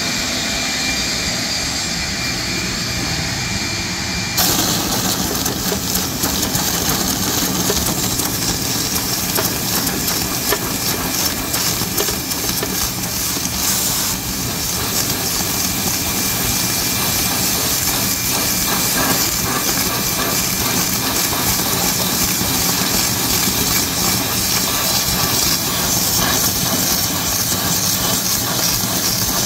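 Compressed air hissing steadily out of a blow gun, blasting dirt and debris off the truck, from about four seconds in to the end. Before that, a shop vacuum runs with a thin steady whine.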